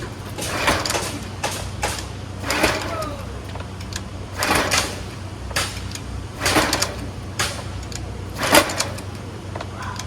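Recoil starter of an old gas pressure washer's small engine being pulled about eight times, each pull a short rasping whir; the engine does not catch. The pull sounds and feels funny.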